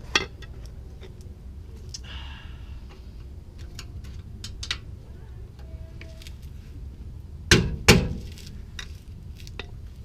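Sledgehammer blows on metal suspension parts while the S10's upper A-arm is knocked loose: one sharp strike at the start, then two strikes in quick succession about seven and a half seconds in. Lighter tool clicks and taps fall between the blows.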